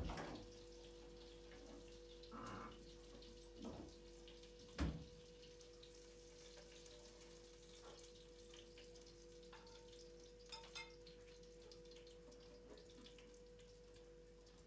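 Quiet room with a faint steady hum and a few soft knocks and clicks from food being put into a pan, the loudest knock about five seconds in.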